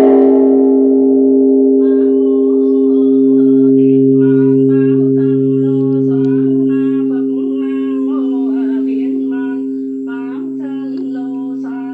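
Large Buddhist temple bell ringing on after a single strike, its deep steady hum slowly fading. A voice chants over it from about two seconds in.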